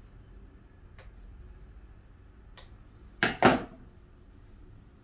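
Handling noises at a work table: a few faint taps and clicks, then two sharp knocks about a quarter second apart as hard objects are set down or bumped on the clear tray.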